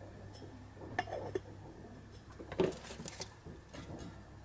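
A few light metallic clicks and clinks, bunched at about one second in and near the middle: a piston ring and a thin feeler gauge being handled against a Super Cub cylinder while the ring end gap is checked with a 0.1 mm gauge.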